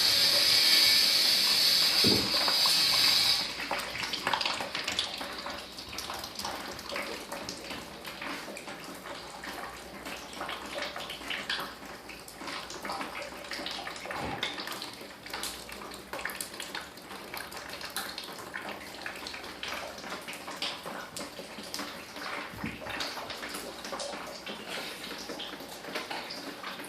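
Water leaking in from above: a steady splashing stream for about the first three seconds, then a quieter patter of irregular drips and splashes.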